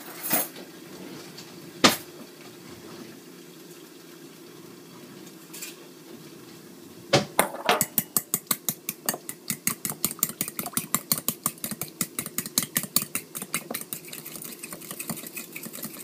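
A fork whisking eggs in a bowl, clicking rapidly against the bowl at about five or six strokes a second, starting about seven seconds in. Two sharp knocks come near the start.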